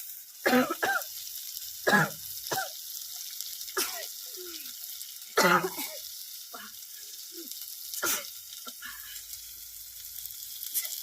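A person sneezing over and over, about five loud sneezes spread across a few seconds, set off by chilli fumes. Under them runs the steady sizzle of tomato thokku frying with chilli in a pan.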